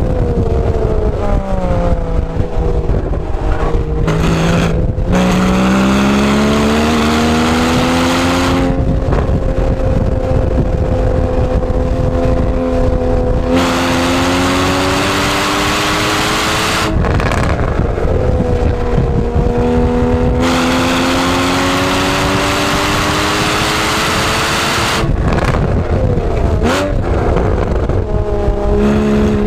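Porsche 981 Cayman S's 3.4-litre flat-six heard from inside the cabin at racing speed: the engine pitch climbs in several long pulls, each broken off by a drop as the driver lifts or changes gear, over steady road and wind noise.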